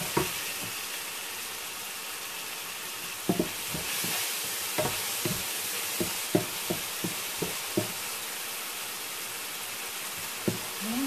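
Long beans, chillies and garlic in sauce sizzling steadily in a non-stick frying pan, the sizzle growing a little louder about four seconds in. A wooden spatula stirs them, knocking against the pan about twice a second through the middle of the stretch.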